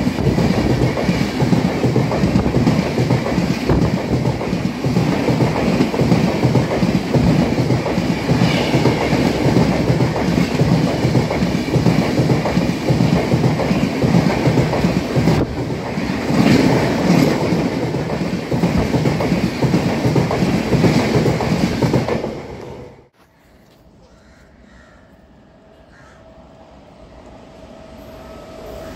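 Express train coaches passing at speed close by, a dense rattle and clatter of wheels over the rails with some wheel squeal. The noise falls away abruptly about 23 seconds in as the last coach goes by. It is followed by a faint, steadily rising rumble as the next train approaches.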